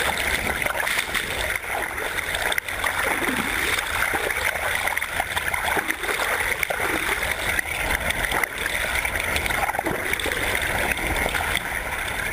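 Water noise heard through a submerged camera: a steady crackling hiss of moving water and bubbles, full of small ticks, with faint gurgles.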